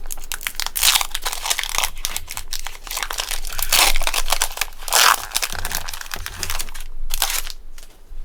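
Foil booster-pack wrapper of a Pokémon trading card pack crinkling and tearing as it is opened: continuous crackly rustling with louder rips about a second, four seconds and five seconds in, quieter near the end.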